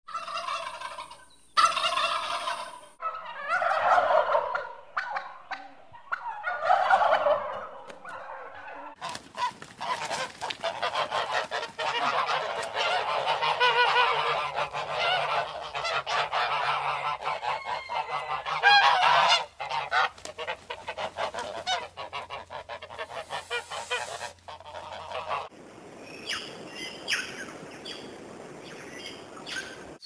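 Wild turkeys calling in short bursts for the first several seconds, then Canada geese honking, many loud overlapping calls, until a few seconds before the end.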